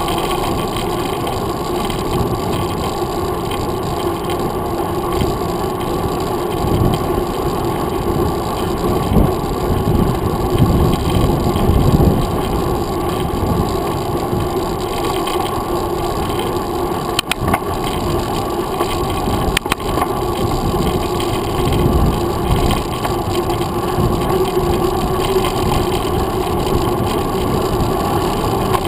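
Steady rumble of a mountain bike rolling along a paved trail: tyre and wind noise picked up by a handlebar-mounted camera. Two sharp clicks come a little past the middle, about two and a half seconds apart.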